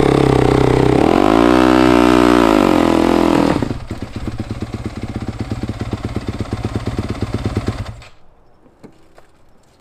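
Yamaha dirt bike engine revving up and back down under clutch as the running bike is walked up a loading ramp into a pickup bed. It then settles to an even idle and cuts off suddenly about eight seconds in.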